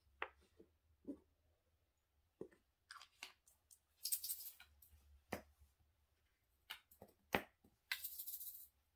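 Small plastic diamond-painting drill bottles clicking and tapping as they are picked up, opened and set down, with short rattling, rustling stretches of the tiny resin drills moving inside a bottle about four seconds in and again near the end.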